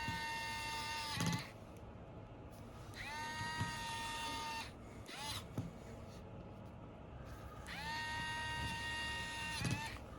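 Small electric screwdriver driving the tiny screws into a smartphone's frame: three runs, each whining up to a steady high pitch for about a second and a half, then winding down with a short rattle as the screw seats.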